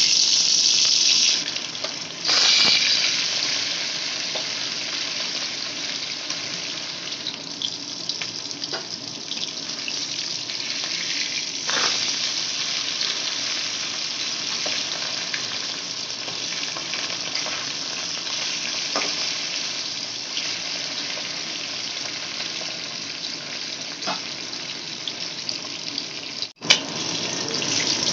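Pieces of bhola fish sizzling in hot oil in a steel wok, a steady hiss that is loudest in the first few seconds, with a few faint clicks.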